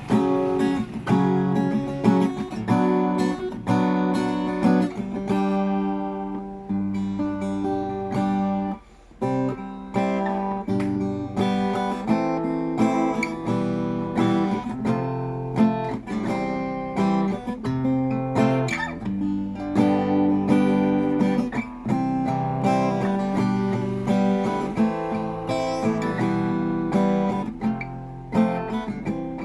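RJ Manila acoustic guitar played unplugged, a run of strummed chords in a steady rhythm with a short break about nine seconds in.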